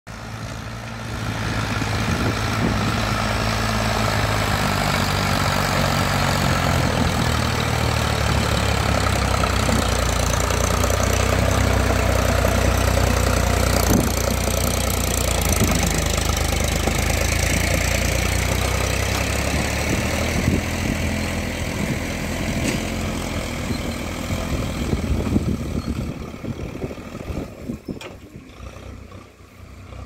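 Indo Farm tractor's diesel engine running hard and steady while pulling a trolley loaded with stones through mud, fading over the last few seconds as the tractor moves away.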